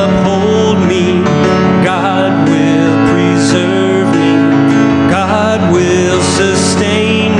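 A man singing a gospel worship song into a microphone, with acoustic guitar accompaniment.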